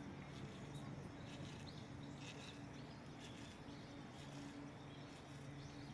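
Faint bird chirps from the wooded hillside, scattered and strongest a couple of seconds in, over a steady low hum.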